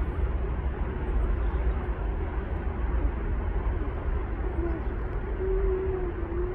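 Steady outdoor background noise: an even rushing hiss over a low rumble, with a faint short tone near the end.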